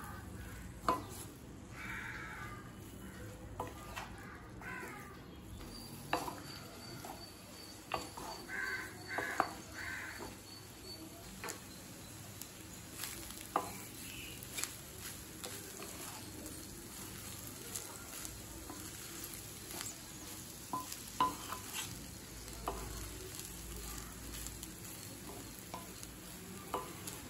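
Spatula stirring and tossing fried rice in a metal kadai: irregular scrapes and knocks against the pan over a faint sizzle.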